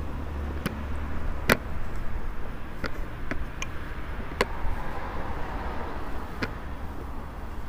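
Outdoor city street ambience: a steady low rumble with a handful of sharp clicks at irregular intervals, the loudest about one and a half seconds in.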